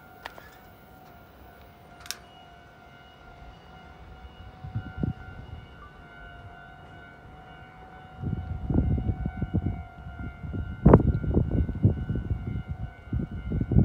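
A steady high warning tone sounds throughout, made of several held pitches. From about eight seconds in, an approaching Kintetsu electric train adds a rising, uneven rumble and clatter, with one sharp knock about eleven seconds in.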